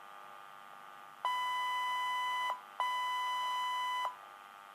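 Motorola Minitor V fire pager sounding its alert: two long, steady beeps of the same pitch, each about a second and a half long with a short gap between them. The alert marks an incoming dispatch.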